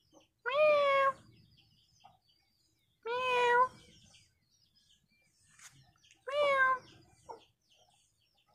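Small orange tabby kitten meowing three times, about three seconds apart; each meow is short and rises slightly in pitch, then falls.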